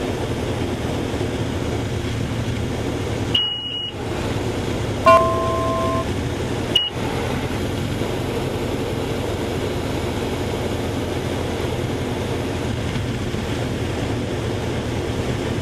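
Steady drone of the Cubcrafters NX Cub's engine and propeller heard inside the cockpit. The cabin noise cuts out briefly around a short high beep about three and a half seconds in. A two-note electronic tone lasts about a second at five seconds, and another short high beep comes near seven seconds.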